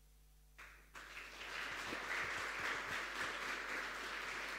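Audience applauding, starting about a second in and keeping on.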